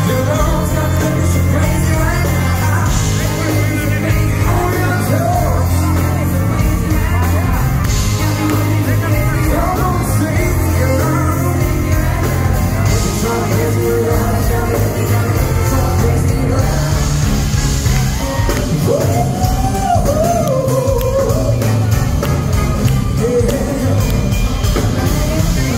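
Live band playing a rock-pop song, with electric guitar, keyboards, drums and brass, and a male singer's voice over it.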